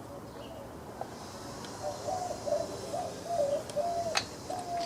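A dove cooing in the background: a run of short, soft, pitched coos that starts about a second and a half in. There is a single sharp click near the end.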